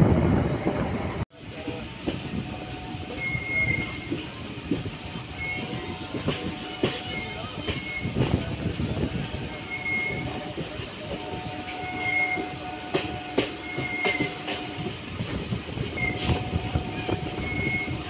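Train running, heard from aboard the coach: wheels clattering over rail joints and points, with short high wheel squeals every second or two. A louder rumble at the start cuts off abruptly about a second in.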